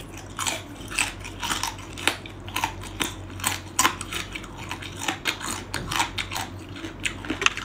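A small chilled crab's shell being bitten and chewed: an irregular run of sharp, crisp cracks and crunches, several a second.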